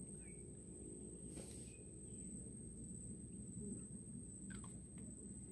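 Quiet outdoor background noise: a steady low rumble with a thin steady high whine, two short faint chirps, and a soft click about four and a half seconds in.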